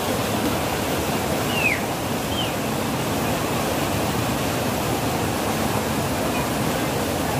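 Swollen, muddy forest river running fast through rapids and around boulders after rain: a steady, unbroken rush of white water.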